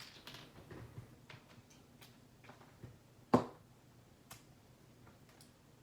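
Light clicks and taps from handling a clamp meter and its test leads while setting up a continuity test, with one sharp, loud click about three and a half seconds in.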